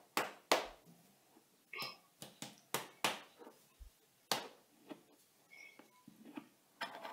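Irregular sharp taps and clicks, more than a dozen, from hands handling small items close to the microphone.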